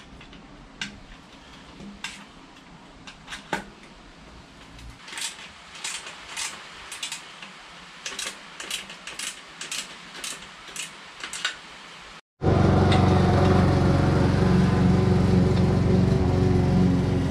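Metal hand tools clicking and clinking against bicycle and motor-kit parts in irregular taps. About twelve seconds in, after a brief dropout, a much louder steady drone with several held tones takes over.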